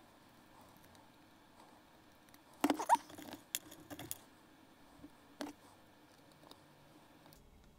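Small hard parts handled on a workbench while a powder horn's brass fittings are put back on. A cluster of clicks and scrapes comes about three seconds in, followed by a few single clicks over quiet room tone.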